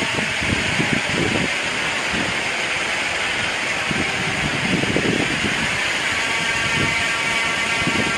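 Wind: a steady rushing hiss with irregular low gusts rumbling through it.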